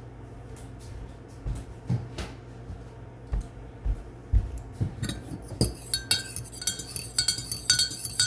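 A few dull knocks and handling thumps, then from about five seconds in a metal utensil clinking quickly against a mug, about three to four ringing clinks a second, as when stirring a drink.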